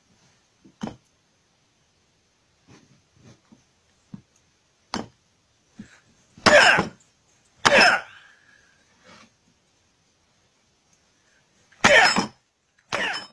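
A man striking down with his hand at an old iron key on a wooden bench, trying to bend it with 'wolf paw' hand strikes. Each strike comes with a loud, sharp forced exhale: two about a second apart midway and two more near the end, with fainter knocks between.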